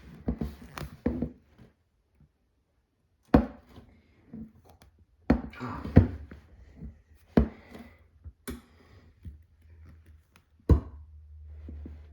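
Hard plastic animatronic stand pieces knocking and clicking as the poles are pushed and fitted together, about six sharp knocks a second or two apart with handling rustle between.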